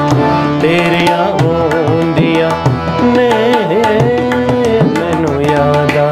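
Tabla played in a dense run of strokes under harmonium chords, with a wordless sung melody wavering over them.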